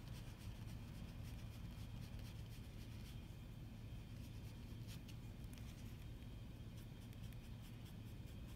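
Faint scratchy dabbing and rubbing of a foam brush loading black paint from a paper plate, with a few light taps, over a steady low hum.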